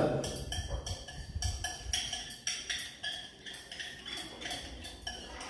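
Light, irregular clinks and taps of glassware as the soap mixture of oil and sodium hydroxide solution is stirred in a container, with a low rumble of handling underneath.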